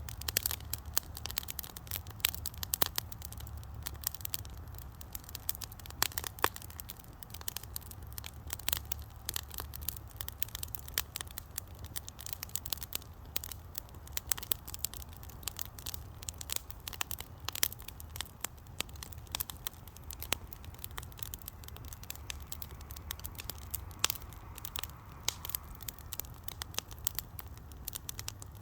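Wood fire in a firepit crackling, with many sharp irregular pops and snaps over a steady low hum.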